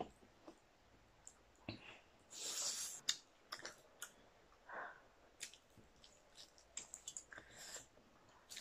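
Mouth sounds of eating noodles and fried chicken: scattered wet clicks and smacks of chewing and biting, with a short rushing sound about two and a half seconds in.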